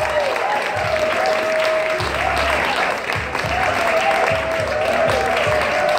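A crowd applauding over loud entrance music that carries a wavering melody and a thumping beat.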